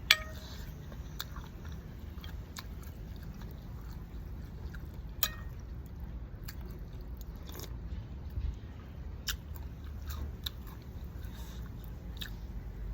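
A person eating close to the microphone, chewing and crunching food, with scattered sharp clicks through the meal.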